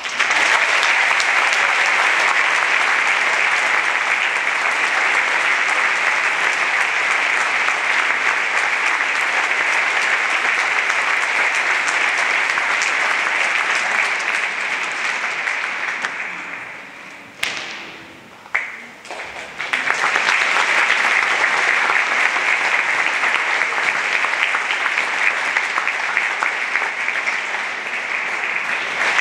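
Large audience applauding, a long round of dense clapping that dies down about two-thirds of the way through, with one sharp knock in the lull, then swells again.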